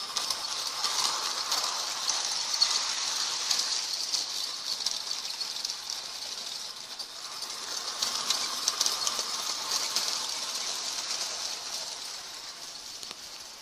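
Lionel toy train running around its track, a steady fine rattle of wheels and motor that swells, eases off around the middle, swells again and then fades.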